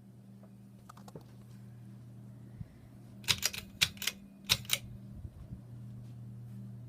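Hampton Bay Bridgeton ceiling fan motor running with a steady low hum. About three seconds in comes a quick run of about six sharp clicks over a second and a half, the loudest thing here, with a few fainter clicks about a second in.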